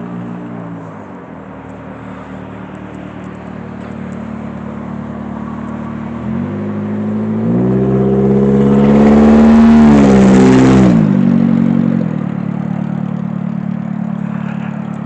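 Car engine running steadily, with a vehicle accelerating close by: the engine's pitch climbs in steps from about six seconds in, is loudest around ten seconds, then drops back about twelve seconds in.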